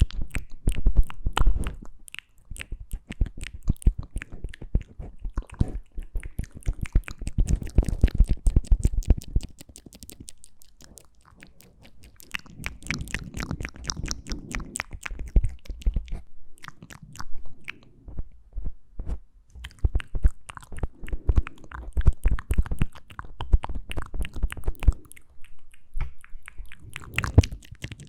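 Close-miked wet mouth sounds: rapid clicks and smacks of tongue and lips in dense runs, easing off briefly around ten to twelve seconds in.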